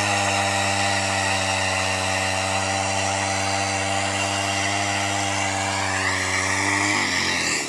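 Chainsaw running steadily at high speed, its bar cutting down through river ice. About seven seconds in, its pitch falls and the sound breaks up as the saw slows.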